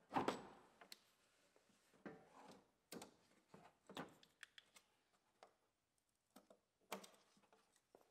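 Sparse light clicks and knocks, about half a dozen, with near silence between them. They come from hand tools and plastic parts as a GMC Yukon's headlight assembly is unbolted and unplugged.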